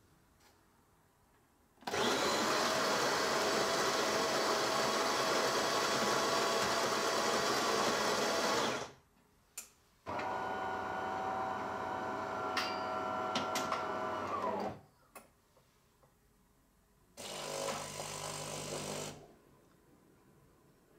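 De'Longhi ECAM22.360.S bean-to-cup coffee machine starting a brew cycle: its built-in grinder runs steadily for about seven seconds. After a short pause and a click, a second motor runs for about five seconds as the brewing unit moves into place. Near the end the pump hums briefly for about two seconds.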